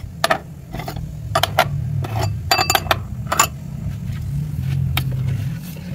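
Glass dessert bowls clinking against each other and on a tiled counter as they are unstacked and set out: about ten sharp, irregular clinks, several close together near the middle, over a steady low rumble.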